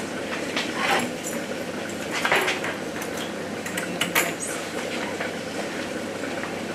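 A few light knocks and clatter as a metal baking tray is picked up off the worktop and carried, over a steady background hiss.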